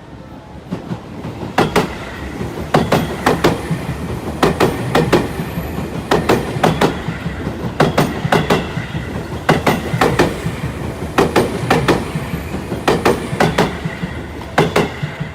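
Seibu Line electric train running along the track, its wheels clacking over the rail joints in repeated close pairs of beats over a steady rumble.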